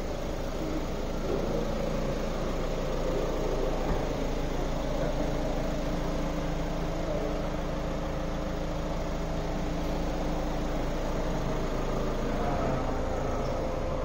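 Toyota ProAce City van's engine idling steadily.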